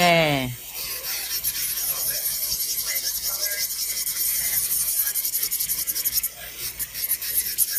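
Nail file rasping back and forth over an acrylic powder nail in quick, even strokes, smoothing and shaping it, with a short pause about six seconds in.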